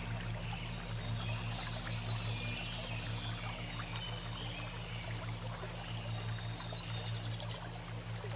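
Nature soundscape of steadily running water with birds chirping, including a quick falling call about a second and a half in, over a low steady hum.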